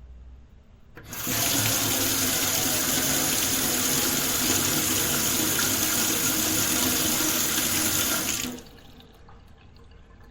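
Tap water running into a metal kitchen sink: the flow starts suddenly about a second in, runs steady and full, and stops about two seconds before the end.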